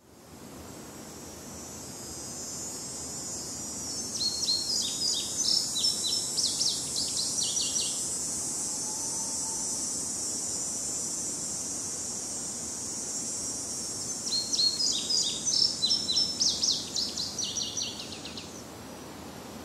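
A songbird sings two songs, each a quick run of rapid high notes lasting about four seconds, over a steady high drone of insects.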